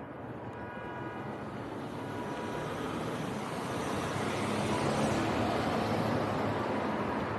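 Road traffic: a vehicle drives past on the street, its engine and tyre noise growing to loudest about five seconds in.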